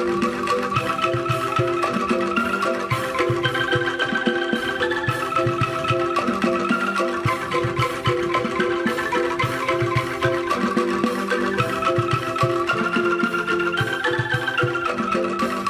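Background music: melodic mallet-percussion notes over a steady, busy percussive beat.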